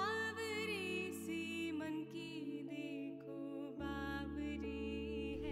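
Soft background music: a wavering melody over held low notes that change twice.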